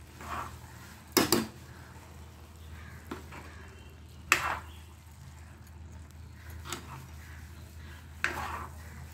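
Metal spatula stirring and scraping through thick moong and potato usal in a kadhai. Sharp clanks of the spatula on the pan come about a second in (two close together), around four seconds in, and again near the end, over a steady low hum.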